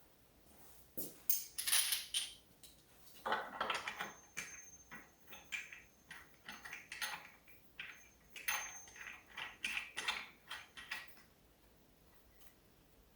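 Metal washers and knobs clinking and clicking as they are handled and fitted onto a wooden quilting frame, an irregular run of sharp clinks, a few with a faint ring, that stops about 11 seconds in.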